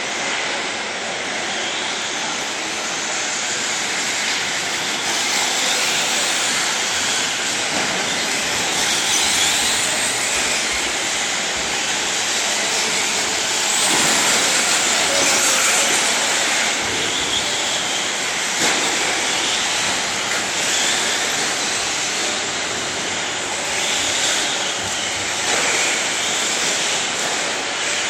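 Several radio-controlled 4x4 short-course trucks racing on a dirt track. Their motors and tyres make a continuous high whir that swells and eases slightly as the pack moves around the track.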